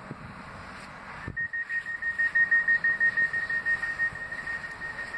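Metrolink M5000 tram's door warning sounding: a rapid high-pitched beeping, about five beeps a second, that starts with a click about a second in and keeps going.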